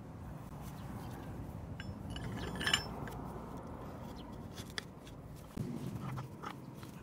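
Steel hand auger bit being set back into a hole bored in a log and turned by hand, with a sharp clinking about two and a half seconds in and a short low scrape of wood near the end.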